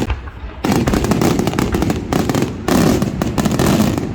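Fireworks going off: a bang at the start, then from about half a second in a dense, rapid barrage of crackling bangs.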